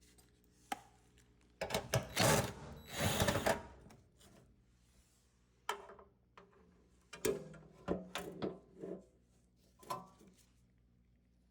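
Irregular knocks, clicks and scraping of dryer parts and tools being handled during disassembly. The loudest is a scraping, rattling stretch about two to four seconds in, with single knocks later on.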